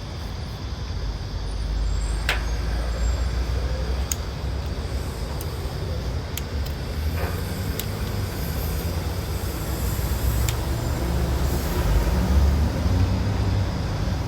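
Heavy diesel engine running steadily at idle, a low even rumble, with a few sharp metallic clicks scattered through it.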